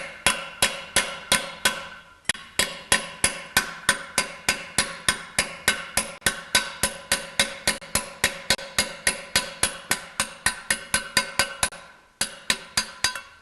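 Small hammer tapping on a large socket to drive the pinion pilot bearing and its splined retainer out of a Ford 9-inch differential carrier: steady ringing metal-on-metal taps, about four a second, with brief pauses about two seconds in and near the end.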